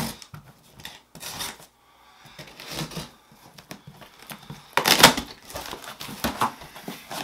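Cardboard shipping box being opened: packing tape cut and the flaps pulled apart, a run of short rustles, scrapes and tearing, loudest about five seconds in.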